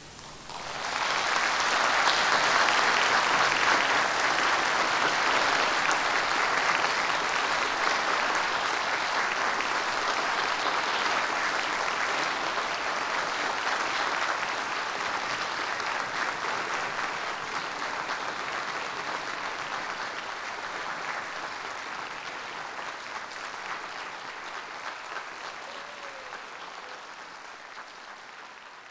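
Audience applauding. The applause builds about a second in, then slowly dies away toward the end.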